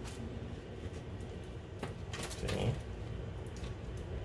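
Soft handling noises as jam-filled cake halves are picked up and pressed together over a lined metal baking sheet: a few faint clicks and one brief louder sound a little past halfway, over a steady low hum.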